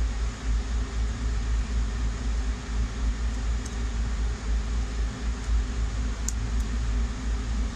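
Steady background noise: a low, fluctuating rumble with an even hiss over it, and two faint short clicks in the second half.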